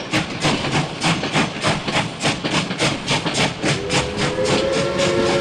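Steam locomotive chuffing, about four exhaust beats a second, with its whistle starting to blow near the end.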